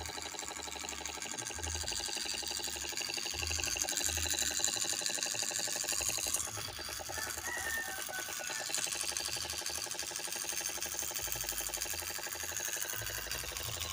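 Small DC hobby motor running steadily in a cardboard model truck, spinning a plastic disc as the model's engine, with a fast, even buzzing rattle.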